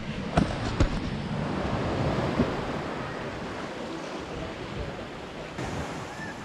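Sea surf washing against shore rocks, a steady rushing noise with wind on the microphone, and two sharp knocks in the first second.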